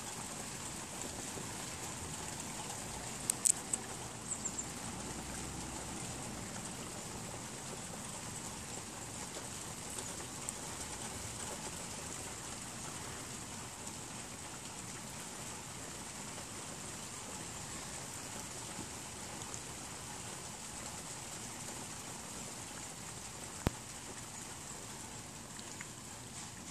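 Steady rain falling, an even hiss, with a few sharp ticks about three to four seconds in and one more near the end.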